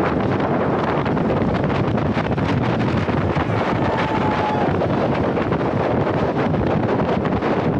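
Steady wind noise buffeting a camera microphone on a track bicycle racing at speed around a velodrome, with a short faint tone about four seconds in.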